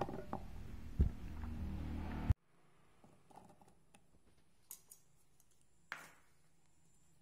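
Chunks of raw pumpkin dropping and clattering into a stainless steel soup-maker jug, with one sharper knock about a second in. After an abrupt cut the sound falls to quiet room tone with a few light taps and a short knock near the end.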